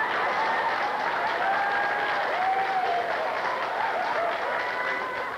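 Audience applauding, with a few voices calling out over the clapping.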